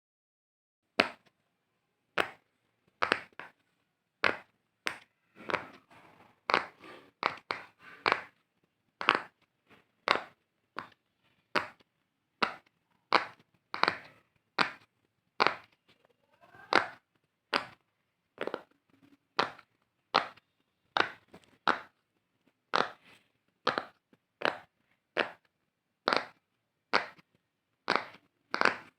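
A fidget toy being popped: a long series of sharp, short pops, about one to two a second at an uneven pace, some in quick pairs.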